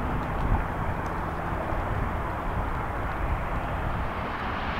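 Outdoor wind buffeting the microphone: a steady rushing noise with an uneven low rumble.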